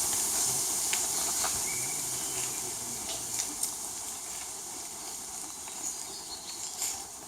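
Steady background hiss, slowly fading, with a few faint clicks and a short high chirp about two seconds in.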